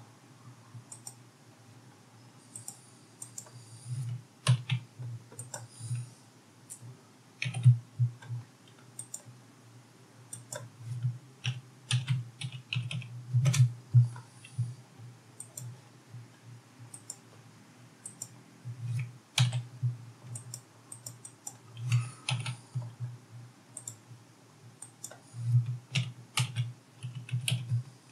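Typing on a computer keyboard in irregular bursts of keystrokes, with short pauses between them.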